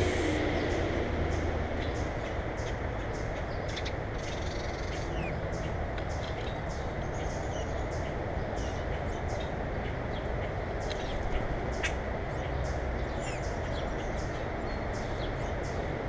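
Steady outdoor rumble with a faint high call repeating about twice a second and a few short bird chirps over it.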